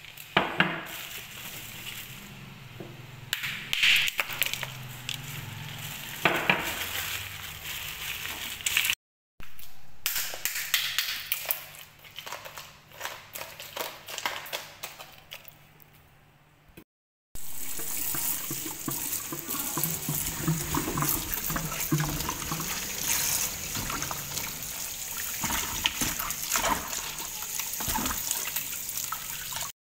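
Ice cubes clinking and clattering in a plastic basin as a hand rummages through fish packed in ice. After a brief dropout about seventeen seconds in, water runs and splashes steadily in the basin as the fish are washed by hand.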